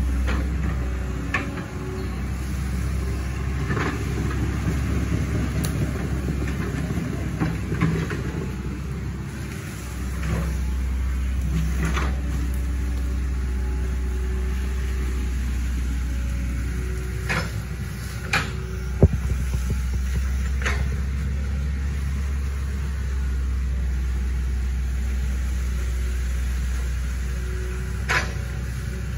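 Hitachi ZX110 excavator's diesel engine running steadily with a deep rumble, dipping briefly about ten seconds in and then picking up again. Scattered short sharp knocks sound over it.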